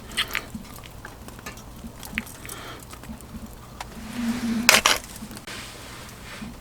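Cookware and utensils clinking and knocking, with a louder clatter about four and a half seconds in.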